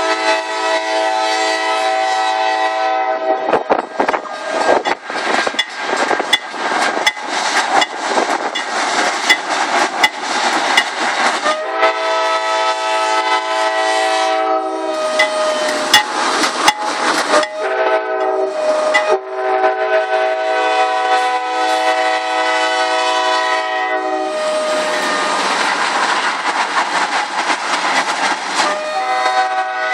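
Nathan K5LA five-chime air horn on a CSX freight locomotive blowing a series of blasts, several long and one short, with a wheezing tone. Between blasts the train's wheels rumble and clatter over the rails.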